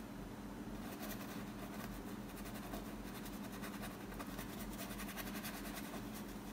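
Quick, repeated scratchy strokes of a small paintbrush dabbing dark paint onto canvas, starting about a second in, over a steady low electrical hum.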